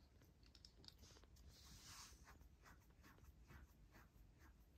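Near silence, with faint soft rustling and small clicks as a newborn kitten shifts about in fluffy bedding; a slightly louder rustle comes about two seconds in.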